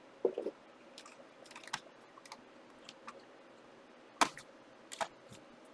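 Trading cards being handled while packs are opened and the cards sorted: scattered light clicks and rustles, with two sharper clicks near the end.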